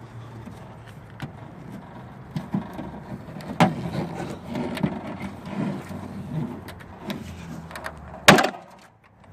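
Irregular knocks, clicks and clatter of hands and tools working on a car's trunk latch and its bolts, with one loud knock about a second before the end.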